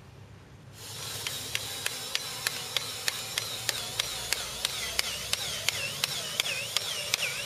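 Electric golf-hole cutter (eCutter) starts about a second in and runs as it cuts a cup hole into the putting green. Its motor gives a steady mechanical noise with a sharp tick about three times a second and a repeating swooping whine.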